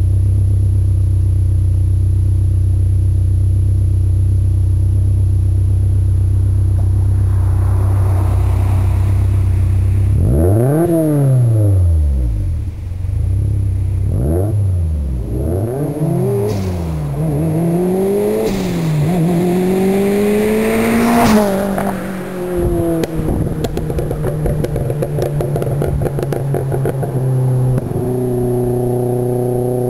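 Exhaust of a Subaru Impreza GC8's flat-four engine through an equal-length exhaust manifold and a Prest WR silencer. It idles steadily for about ten seconds, is then revved up and down several times, highest about two-thirds of the way in, and is then held at a steady raised speed.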